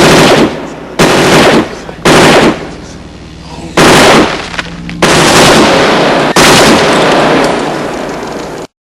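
Machine gun fire in about six short bursts of rapid shots, each trailing off in a reverberant tail, the last two bursts longer; it cuts off abruptly near the end.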